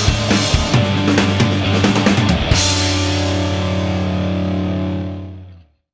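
Rock backing music with drums and guitar. The drums stop about two and a half seconds in, and a held chord rings on and fades out near the end.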